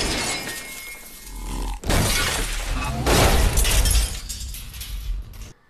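Movie sound effects of a lightsaber hacking apart a control console: several loud waves of crashing, smashing and shattering with a heavy low rumble, cutting off suddenly near the end.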